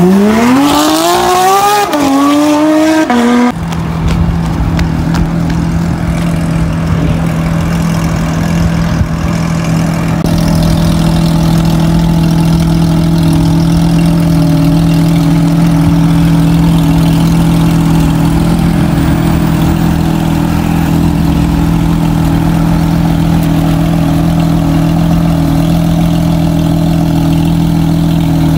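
Porsche 911 GT3 flat-six with an Akrapovič exhaust revving hard, its pitch climbing steeply with a brief dip, for the first few seconds. It then cuts abruptly to a steady drone at a constant pitch with a low rumble, held for the rest.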